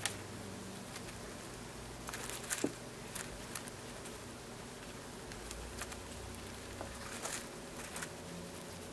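Hamster eating seeds: scattered small sharp clicks and crunches of nibbling and husk-cracking, bunched in two short runs, over a faint steady hiss and hum.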